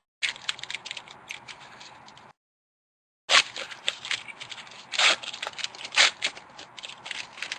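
A trading-card pack wrapper being torn open and crinkled, with cards rustling as they are handled, and sharp crackles of the wrapper about three, five and six seconds in. The sound cuts to dead silence for about a second in the middle.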